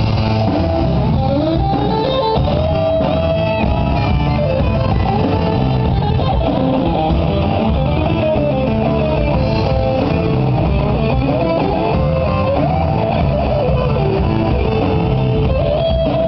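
Rock band playing live, an electric guitar playing a lead line with bends over bass and drums.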